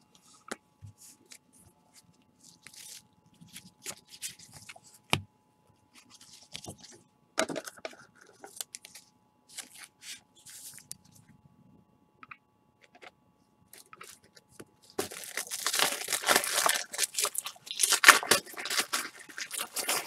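Gloved hands handling trading cards in plastic sleeves and top loaders: scattered light plastic clicks and rustles, then, about fifteen seconds in, several seconds of loud crinkling and tearing of plastic.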